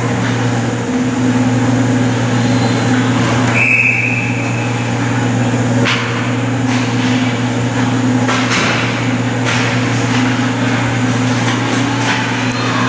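Ice hockey game in a rink: a steady low hum throughout, a short referee's whistle about four seconds in, then sharp clacks of sticks and puck on the ice and boards as play restarts from the faceoff.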